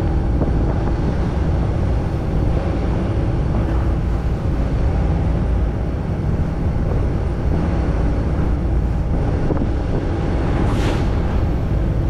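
A boat's engine running steadily, with a few steady tones in its rumble, under wind on the microphone and rough sea rushing along the hull.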